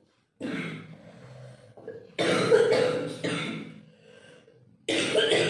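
A person coughing: four coughs in a row, each a sudden harsh burst that fades within a second.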